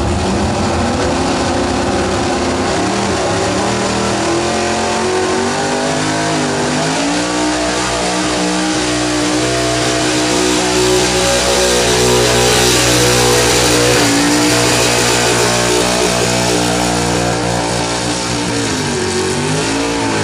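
Pickup truck engine pulling a weight-transfer sled at full throttle. The revs climb over the first several seconds and hold high and steady, dip briefly about two-thirds of the way in, then fall away near the end as the pull finishes.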